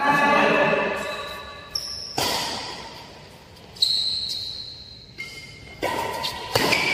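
Badminton rally: sharp racket strikes on the shuttlecock, about six in all at roughly one-second intervals, some leaving a brief ringing ping. High squeaks, likely shoes on the court floor, come in the first second and a half.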